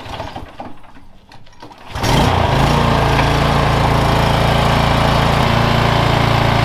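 Toro TimeMaster push mower's single-cylinder four-stroke engine starting about two seconds in, after a few faint clicks and rattles, then running steadily: a start to warm up the oil before an oil change.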